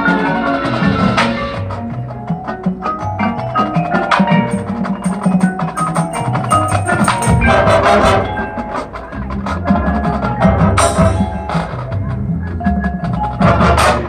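Marching band music with the front ensemble's mallet percussion and drums to the fore, many struck notes over sustained band chords. The full band swells up about halfway through and again near the end.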